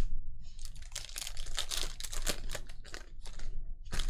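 Plastic trading-card pack wrappers crinkling with quick clicks and rustles of cards being handled, as a new pack is torn open and the cards are pulled out.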